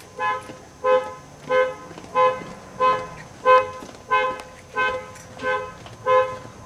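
A car horn honking in short, evenly spaced blasts, about three every two seconds, the repeating pattern of a car alarm going off.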